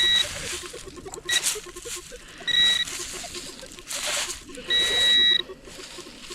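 Metal detector's target tone sounding on and off, a steady high electronic tone lasting under a second each time, as the hole is probed for a buried metal target. Scraping rushes of digging in soil come between the tones.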